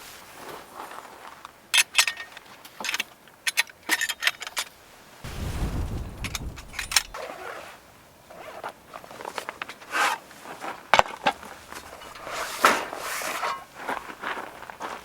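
Handling sounds: a run of sharp clicks, clinks and rustles, with a low rumble for about two seconds some five seconds in.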